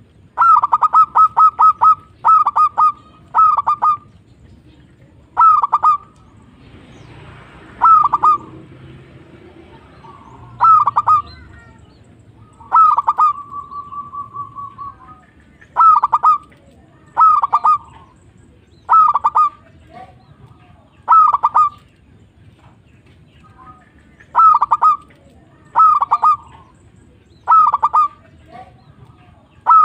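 Zebra dove (perkutut) cooing in short phrases of quick, bubbling notes, repeated every second or two. It opens with a rapid run of notes, and near the middle one note is held for about two seconds.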